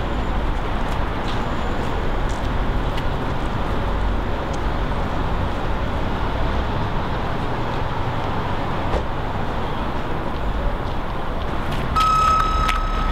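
Steady city street ambience: a low rumble of traffic. Near the end a steady high tone sounds for about a second.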